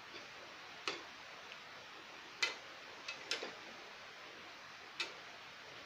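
Perforated steel spoon clinking against a stainless steel pan while stirring pav bhaji: about five sharp taps at irregular intervals, two of them close together in the middle.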